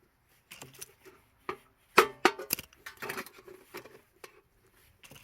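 A nail being struck through the thin metal wall of an empty tin can, punching air holes one after another: a string of sharp, irregular metallic taps with brief ringing, the loudest about two seconds in.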